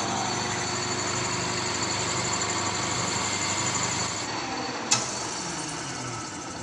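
Victor metal lathe running with its chuck spinning, boring out a Yamaha Mio J scooter cylinder on automatic feed. A little over four seconds in the higher part of the sound drops away, a sharp click follows about half a second later, and the lathe then runs on more quietly as it winds down.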